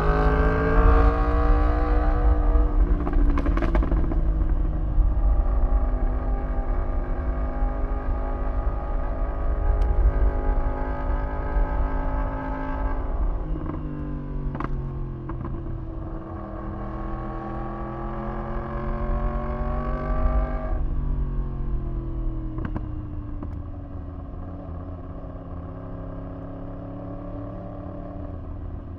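2015 Yamaha R1M's crossplane inline-four engine pulling under throttle while riding, its note rising and then dropping sharply several times, with a heavy low rumble underneath. After a sharp drop about two-thirds of the way through, the note winds down and grows quieter as the bike slows.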